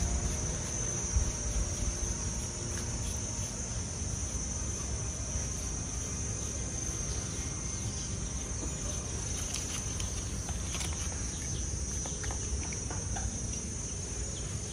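Insects chirring steadily in a high, unbroken drone over a low rumble, with a brief knock about a second in.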